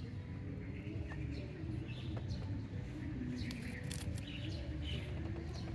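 Short high chirps, bird-like, and scattered light clicks over a steady low rumble.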